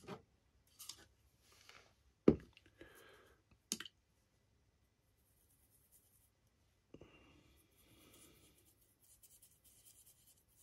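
A plastic water cup is set down on the cutting mat with a sharp knock, among a few lighter clicks and taps. Then comes the soft scratchy rubbing of a paintbrush mixing acrylic paint with water on a palette to thin it.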